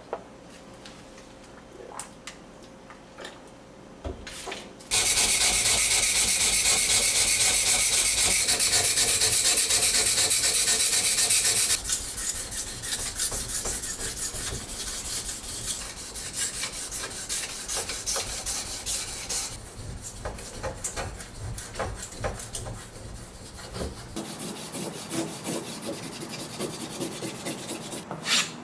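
Knife blade of a Victorinox One Hand Trekker NS scraping against an abrasive sharpener as its tip is reshaped, after a few light clicks at the start. About five seconds in, a loud, even scraping begins; it drops to softer, uneven rubbing strokes about twelve seconds in and keeps going.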